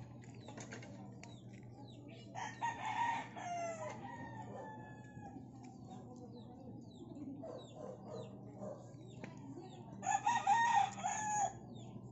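A rooster crowing twice, each crow about a second and a half long, one near the start and one near the end, with short high chirps going on faintly behind.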